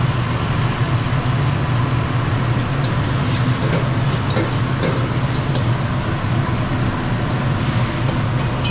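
Vegetables stir-frying in a wok over a gas wok burner: a steady low rumble from the burner under the sizzle. A metal spatula ticks against the wok a few times in the middle.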